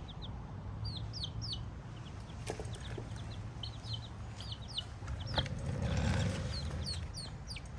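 Young miniature chickens peeping: short high-pitched falling chirps in scattered little runs, with a light knock about five seconds in.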